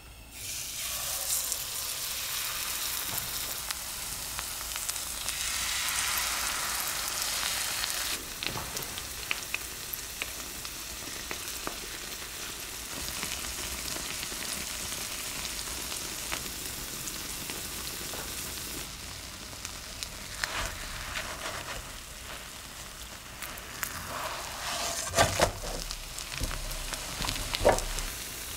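Potato-and-zucchini pancake batter frying in hot vegetable oil in a nonstick pan: a loud sizzle as the batter hits the oil, easing after about eight seconds into a steady sizzle. A few knocks and scrapes on the pan come near the end.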